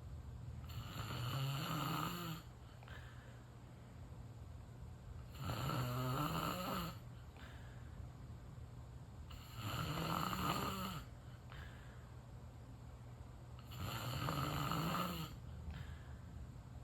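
A person snoring in deep sleep: four snores about four seconds apart, each lasting about a second and a half.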